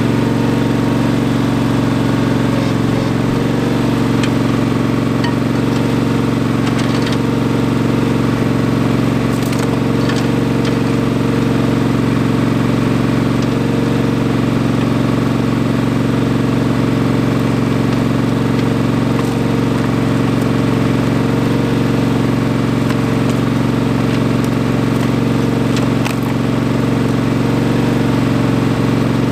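Ingersoll 7020L garden tractor's engine running steadily at one constant speed, heard close up from the tractor itself.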